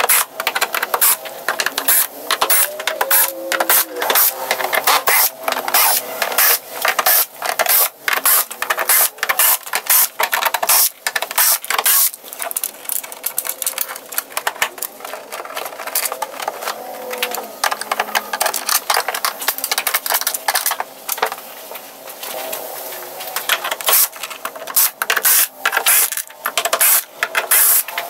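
Cordless drill backing screws out of a keyboard's plastic bottom case in short repeated runs, its motor whine wavering, with many clicks from the screws and handling in between.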